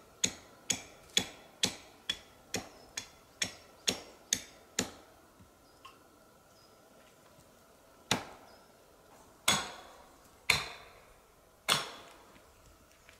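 Axe blade chopping into a wooden stick to carve a point on it: sharp knocks about two a second for the first five seconds. After a pause, four louder, more widely spaced chopping knocks.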